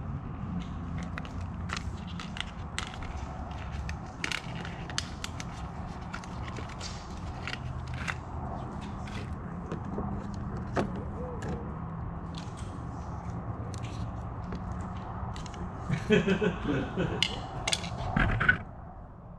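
Scattered clicks and scrapes of plastic being handled as the red rear sidemarker lens is worked off a Trans Am's quarter panel, over a steady low shop hum. A louder burst of clicking and rattling comes near the end.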